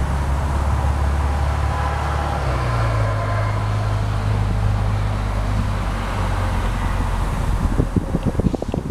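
Steady low engine hum of a motor vehicle, its pitch shifting about two and a half seconds in. Near the end, wind buffets the microphone in irregular thumps.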